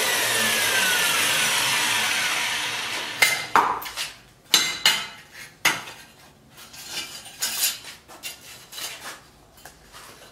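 Angle grinder clamped in a vise running with a steady hiss and a falling whine as a thin metal strip is worked on its disc, stopping about three seconds in. After it, a string of sharp metal clinks and knocks as the metal pieces are handled.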